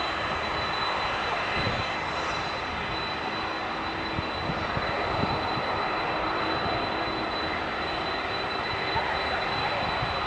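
Aircraft engines running steadily on the ground: a continuous rushing noise with a thin, steady high whine over it.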